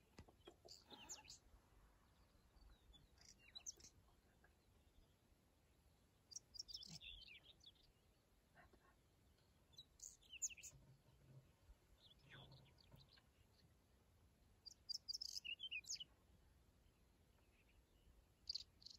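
Faint birdsong: short, high chirping phrases every few seconds over an otherwise near-silent background.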